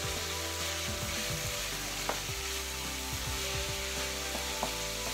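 Raw minced beef and onions sizzling in a frying pan as a wooden spatula stirs them, the mince just added to the hot pan. Two sharp knocks, about two seconds in and again near the end.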